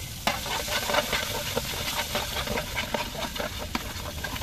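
Ginger paste frying in hot oil with whole spices in a large aluminium pot, a steady sizzle full of small crackles as it is stirred with a metal spatula. The sizzle jumps up about a third of a second in.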